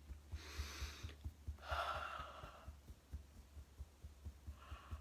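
A woman breathing deeply: one breath early on, a second about two seconds in, and a faint third near the end.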